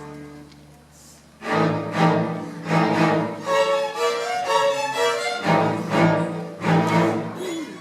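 A school string orchestra of violins, cellos and basses playing. A held chord dies away, then about a second and a half in the strings come in with loud, sharply accented bowed chords under a moving melody.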